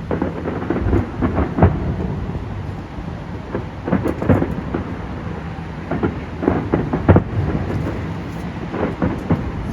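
Fireworks exploding in rapid, irregular succession: a continuous run of booms and bangs, with especially sharp bangs about one and a half seconds in and about seven seconds in.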